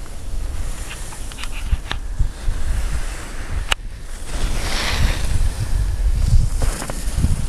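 Wind buffeting the microphone in a steady low rumble, with a hiss of skis sliding over packed snow swelling about halfway through and a single sharp click just before it.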